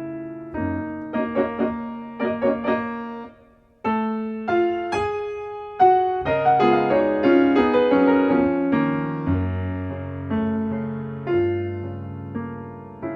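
Solo piano music: chords and a melody of struck notes, breaking off briefly a little after three seconds in before resuming.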